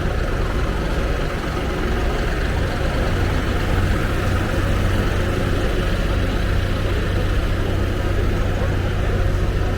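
A steady low hum under a constant background din.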